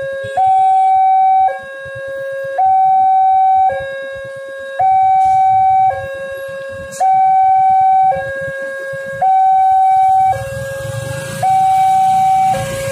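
Railway level-crossing warning alarm sounding its two-tone signal, a higher and a lower tone alternating, each held a little over a second, warning that a train is approaching. Near the end a low engine rumble from a motorcycle close by joins in.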